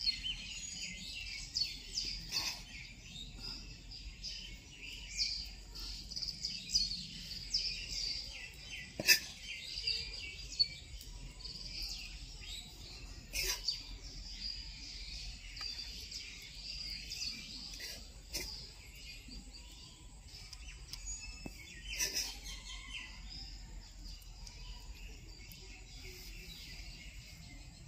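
Birds chirping in the background, a dense run of short, high chirps that thins out in the second half. A few sharp clicks stand out above them, about nine and thirteen seconds in and again a little past twenty-two seconds.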